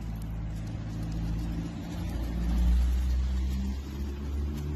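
A motor vehicle's engine running as a steady low hum, swelling to its loudest about halfway through and easing off near the end.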